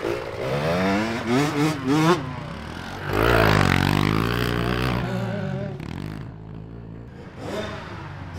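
KTM 65 two-stroke youth dirt bike being ridden, its revs rising and falling quickly in the first couple of seconds. About three seconds in it gets loud as it passes close, its pitch dropping, then it fades away.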